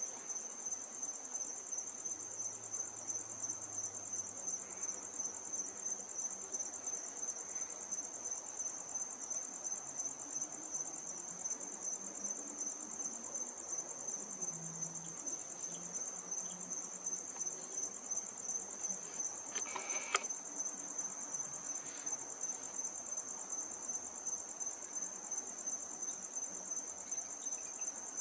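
Crickets chirping in a steady, high, fast-pulsing trill, with a brief click about twenty seconds in.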